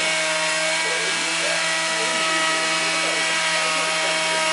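Wood lathe running at a steady speed: a constant machine hum over an even hiss.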